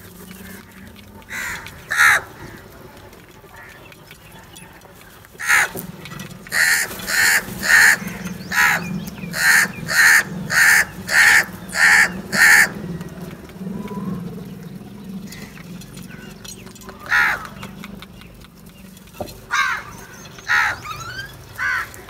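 A flock of house crows cawing. A couple of harsh caws come first, then a quick run of about ten caws in a row, then a few scattered caws near the end.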